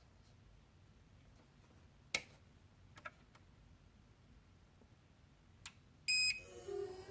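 Late-2000s hard disk drive powering up: a few sharp clicks over a low hum, then about six seconds in a short, loud high beep, followed by the spindle motor starting to spin up with a whine that rises in pitch.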